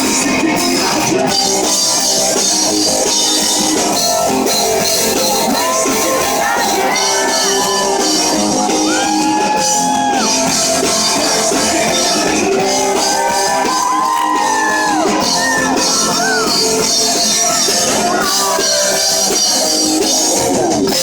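Live rock band playing loudly and steadily: electric guitars over a drum kit, with a melody line sliding in pitch now and then.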